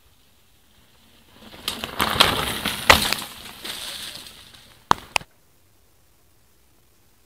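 A mountain bike passing close on a dirt trail: the tyres on dirt and loose stones grow louder over about a second and fade away, with a few sharp knocks at the loudest point. Two short sharp clicks follow about a second later.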